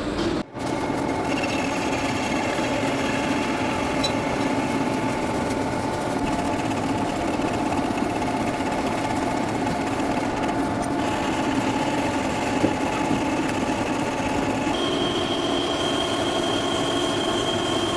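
Metal lathe running under cut: a steady mechanical hum with a held high whine. The tone shifts abruptly twice, near the middle and about three seconds before the end.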